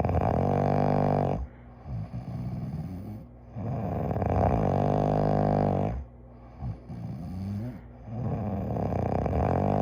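A person snoring in sleep: three long snores about four seconds apart, each lasting one and a half to two and a half seconds, with softer breaths between.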